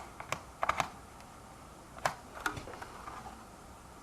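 A handful of short, light plastic clicks and taps from the charging port's plastic nut being tightened by hand into the balance scooter's shell.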